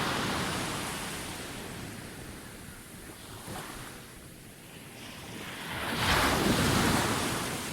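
Sea waves on a beach: the wash of one wave fades away, then the next breaks about six seconds in, the loudest moment, and washes up before easing off.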